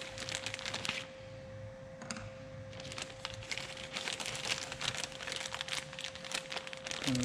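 Small clear plastic zip-lock bag crinkling as it is handled and worked open, in two spells of rapid crackling with a lull starting about a second in.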